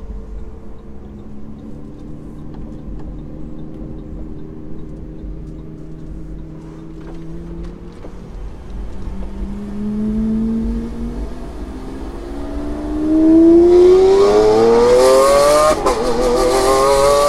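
Lamborghini Aventador's V12 through a Capristo cat-less straight-pipe exhaust, heard from inside the cabin. It runs steadily at low revs at first, then revs up under acceleration from about nine seconds in, the pitch climbing. It is loudest in the last few seconds, with a short break near the end.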